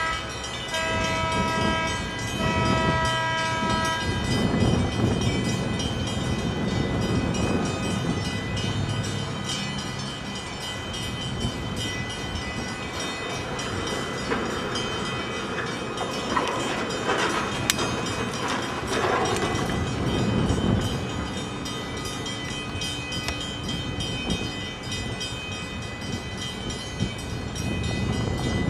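A multi-tone horn blows two long blasts in the first few seconds. Under it runs the steady low rumble of a tugboat's diesel engines pushing a loaded barge, and a rushing noise swells and fades midway.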